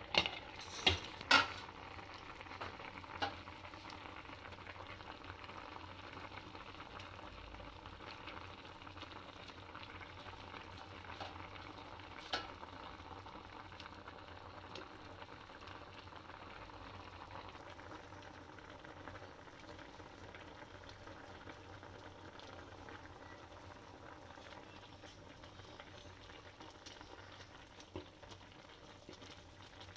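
Chicken and bamboo shoots cooking without oil in a pot, a steady bubbling sizzle. A few sharp clinks of a utensil against the pot come in the first couple of seconds, and once more later.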